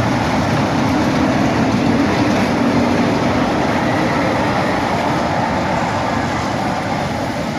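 Steady, loud mechanical rumble and hiss from a running machine.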